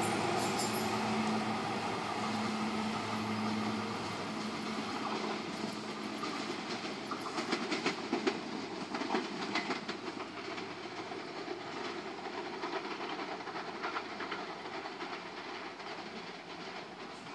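SEPTA Silverliner IV electric multiple-unit train pulling away, its electrical hum and wheel noise fading steadily. About halfway through comes a run of sharp clicks as the wheels cross rail joints and switches.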